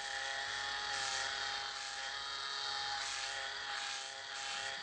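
Electric hair clippers buzzing steadily as they cut short hair, the hiss above the hum swelling and easing about once a second.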